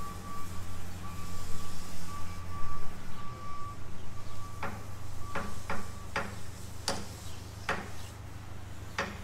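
A vehicle's reversing alarm beeps over a low, steady engine running; the beeping stops about six seconds in. From about halfway through come a series of sharp knocks at irregular intervals.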